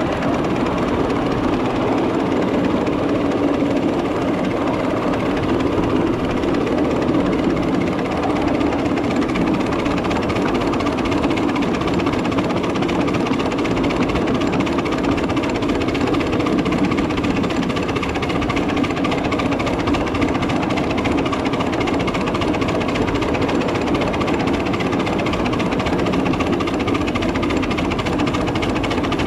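A 7.5-inch gauge miniature train running along the track, heard from aboard: a loud, steady, rhythmic mechanical clatter from the moving train, unbroken throughout.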